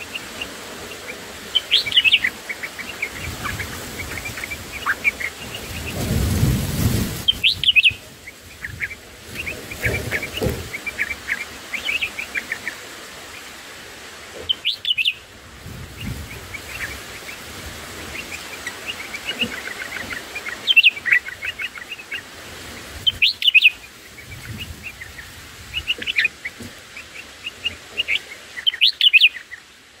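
Bulbuls chirping and calling at the nest, short bright notes and trills repeating throughout, with louder calls every few seconds. A low rumble about six seconds in.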